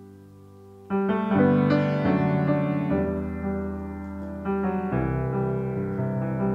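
Background piano music: a new phrase of notes begins about a second in, and more notes come in near five seconds.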